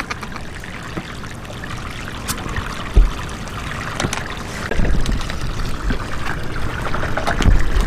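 A steady hiss of moving water at the river's edge, with a single thump about three seconds in and low rumbling from about five seconds on.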